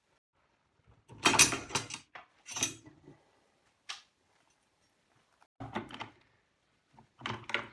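Metal parts of a stand mixer's gear mechanism clattering and knocking as they are handled during disassembly. A loud rattle comes about a second in, followed by shorter knocks and a single sharp click.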